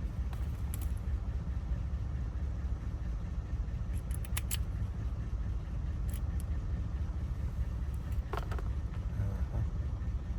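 A steady low rumble under a few faint, sharp clicks of small metal lock parts being handled while a car lock cylinder is rekeyed.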